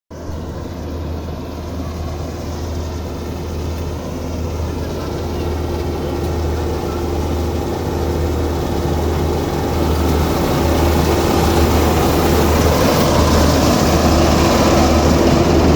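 Half-feed combine harvester running, a steady low engine drone under a constant machine hum, growing gradually louder.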